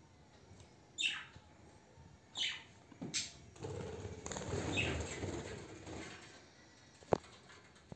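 Three short, sharp parakeet calls, each falling in pitch, in the first few seconds. Then wings flap for about two seconds as a small yellow parakeet flies about the room, and a single sharp click comes near the end.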